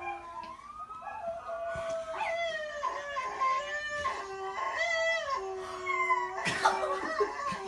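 Puppies howling: drawn-out howls that waver and glide up and down, several pitches overlapping at once. A short noisy burst comes about six and a half seconds in.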